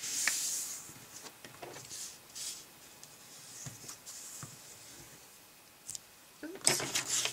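A sheet of paper being folded back on itself and creased: a rubbing swish in the first second, then scattered soft scratches and rustles. A quieter spell follows, and a burst of crisp rustling comes near the end.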